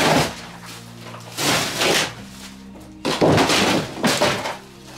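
Wallpapered wall boards being broken and torn off with a hammer during demolition: about four loud cracking, tearing crashes, over background music.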